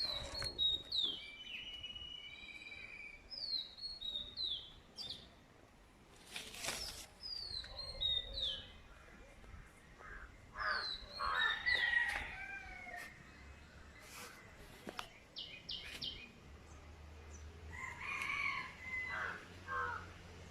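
Birds calling: many short, high chirps that slide downward, with two louder, lower calls, one about the middle and one near the end, and a few faint clicks.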